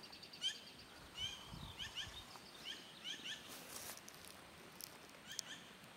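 Black-billed magpies calling faintly: a string of short, sharp chirping notes, a few each second, with some harsher rasping calls past the middle.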